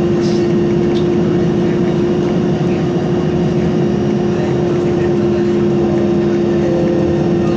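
Isuzu Citibus interior while driving: steady engine and road noise with a constant droning hum.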